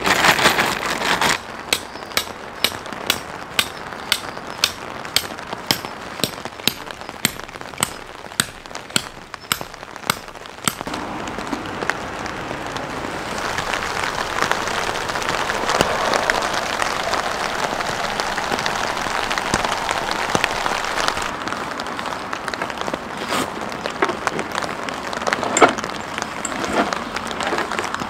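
Steady rain falling and pattering on surfaces. For the first ten seconds or so a sharp click repeats about twice a second over the rain.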